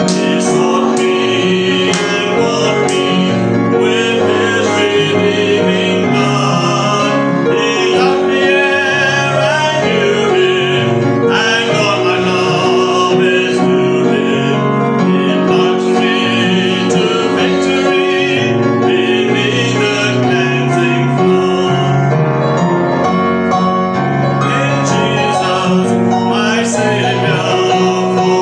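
A church hymn sung by men's and women's voices over a keyboard accompaniment, with a few hand claps in the first few seconds.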